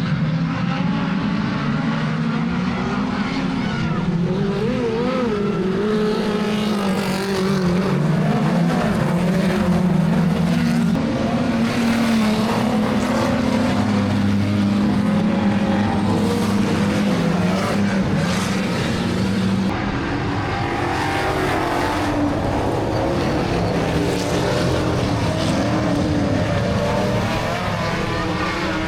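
Speedway cars racing: several engines running together at high revs, their pitch rising and falling as they accelerate and lift.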